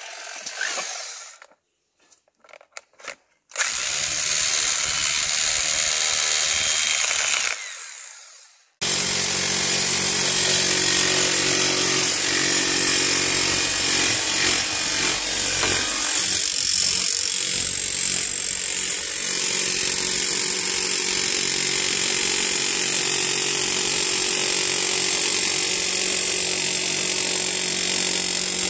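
Hilti TE 706 electric demolition hammer hammering a copper earthing rod into the ground through a driving adapter. After a few scattered knocks it runs for about four seconds and stops briefly, then runs steadily for the last twenty seconds.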